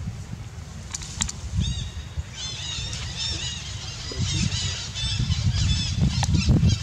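Baby macaque squealing in quick runs of short, shrill, rising-and-falling squeaks, starting about a second and a half in, over a low rumble.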